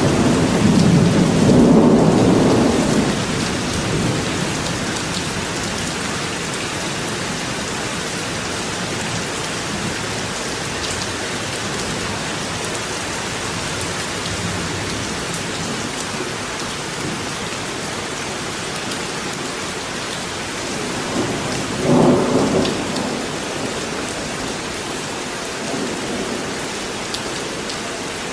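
Steady rain falling, with a low rumble of thunder in the first few seconds and a shorter one about 22 seconds in.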